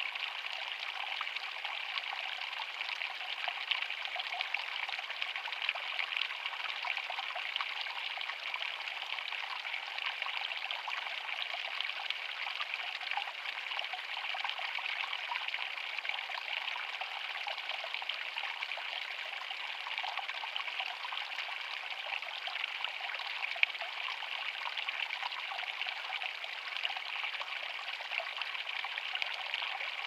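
A thin stream of water pouring off a rock bank and splashing steadily into a shallow creek pool, with the creek trickling over stones around it.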